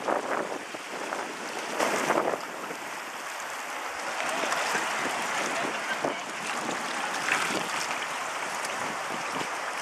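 Flooded river water rushing and swirling in whirlpools and boils, with wind on the microphone. There is a louder rush about two seconds in.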